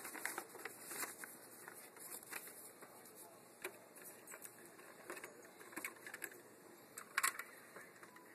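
Paper rustling and crinkling as a folded wiring-chart sheet is handled, then scattered sharp clicks and taps of plastic packaging and a plastic thermostat wall plate being handled, the loudest about seven seconds in.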